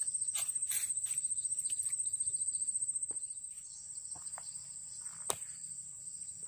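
Insects trilling in the waterside vegetation, one steady high-pitched note that never stops. Scattered light clicks and knocks come over it, with one sharper click about five seconds in.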